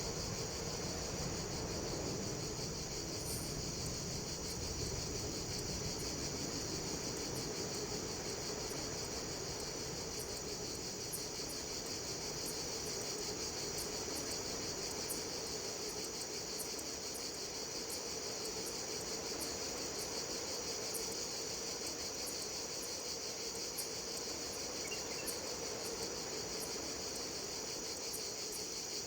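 Steady chorus of insects in a forest, a constant high-pitched trill that does not let up, over a soft even background hiss.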